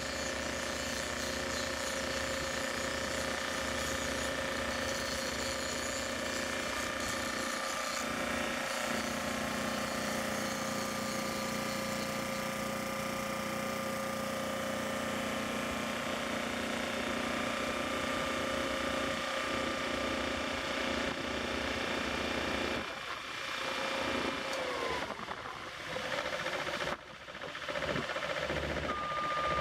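Heavy machinery engine running steadily with a constant whine, its pitch falling away about 25 seconds in, followed by uneven noise and a short beep near the end.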